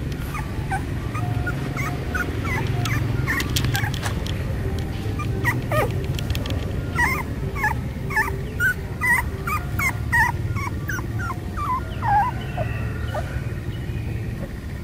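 A puppy whimpering and yipping: a long string of short, high cries, coming thickest in the middle, over a steady low hum.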